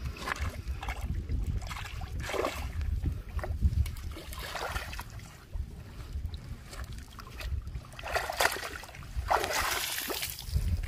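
Water splashing and sloshing in short bursts as a mesh keep net holding caught fish is worked at the water's edge and lifted out near the end, with a steady wind rumble on the microphone.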